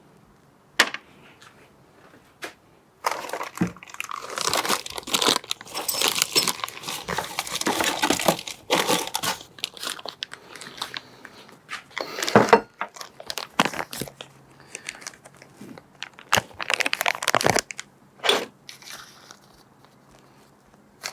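Packaging crinkling and tearing as new replacement parts are unwrapped and handled, in a long dense stretch and then in shorter bursts, with a sharp click about a second in.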